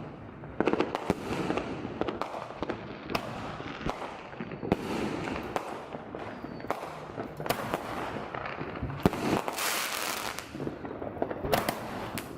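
Fireworks going off in an irregular string of sharp bangs over steady crackling, with a dense stretch of crackling about nine to ten seconds in.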